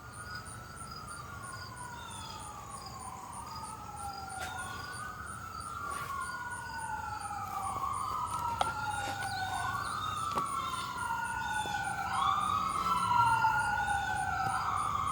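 Emergency vehicle siren wailing, its pitch sweeping slowly up and down every two to three seconds, growing steadily louder as it approaches.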